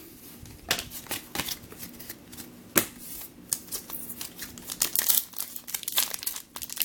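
Trading cards being handled and flipped through by hand: a run of irregular sharp clicks and scrapes of card on card, the loudest about three seconds in.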